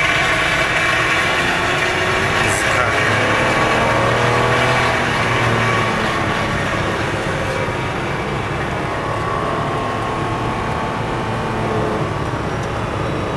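Ferrari 456M's V12 engine heard from inside the cabin under way, its pitch rising and falling with the revs over steady road noise, easing off somewhat in the second half.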